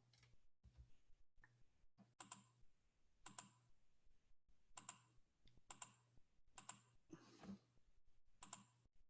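Faint clicking at a computer, single and paired clicks roughly once a second, over a faint low steady hum.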